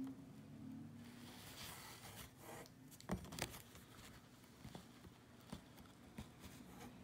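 Faint scratching and rustling of a needle and yarn being worked through a rug's warp threads during hand reweaving, with scattered light taps and a few sharper clicks about three seconds in.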